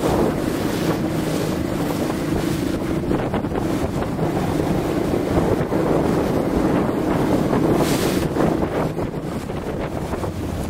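Wind buffeting the microphone on open water, with waves sloshing and a steady low hum underneath. A stronger gust comes about eight seconds in.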